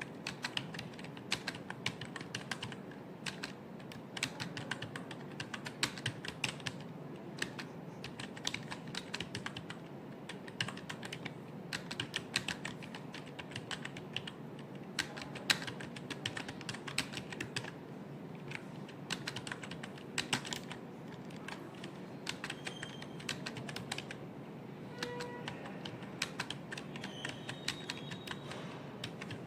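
Fast typing on a computer keyboard: keys clicking several times a second in uneven runs, with brief pauses.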